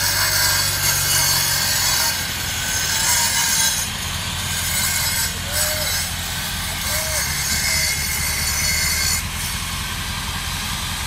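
Concrete saw cutting into a concrete driveway slab, scoring control joints, with a steady high grinding whine.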